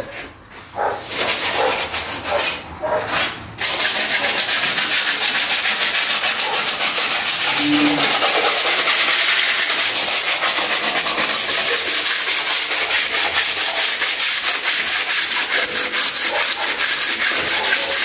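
Hand sanding of a plastered wall with a sanding pad: scratchy, rapid back-and-forth strokes. A few short strokes come first, then a steady run of sanding from about four seconds in.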